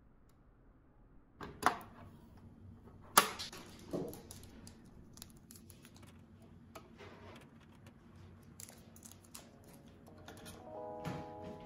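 Hard plastic packing pieces being handled and pulled out of a Cricut Explore Air 2 cutting machine: a few sharp plastic clicks and knocks, the loudest about three seconds in, with small taps between. Soft background music fades in near the end.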